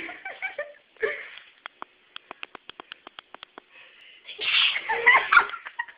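A girl sneezing. The loudest burst comes a little past the middle, after a run of quick small clicks at about six a second.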